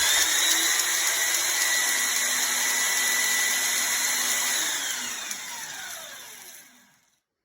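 Makita 4x24 belt sander, stretched into a 2x72 belt grinder, running loud with a steady whine as a newly fitted belt tracks toward centre. About four and a half seconds in it is switched off, and the whine falls in pitch as the motor and belt wind down to a stop.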